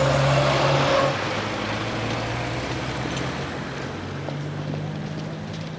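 A car passing close by, its engine hum loudest for about the first second. After that the sound drops to a steady background of street traffic noise.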